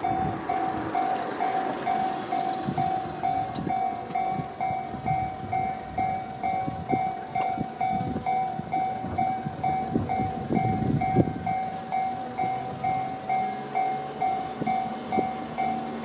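Japanese level-crossing alarm (Tobu 'sound C') ringing, a steady electronic bell at about two strikes a second, which means a train is due and the barriers are down. Low rumbling and knocks build up around the middle.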